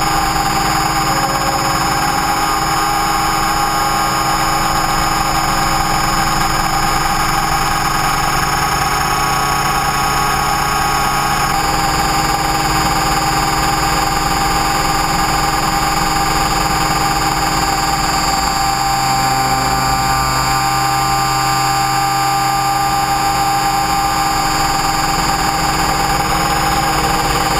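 Align T-Rex 550E electric RC helicopter in flight, heard from its onboard camera: a steady, loud whine of several tones from the brushless motor and drive gears over the rush of the rotor. The pitch steps slightly about twelve seconds in.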